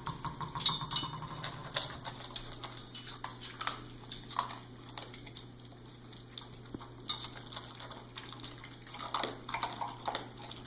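Dogs moving about indoors: scattered light clicks and taps, with a short buzzy pitched sound in the first two seconds.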